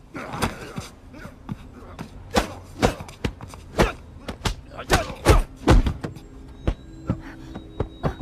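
Film fight sound effects: a quick, irregular series of sharp punch and kick impacts in a hand-to-hand fight, about a dozen blows, the heaviest a little past the middle and fewer toward the end.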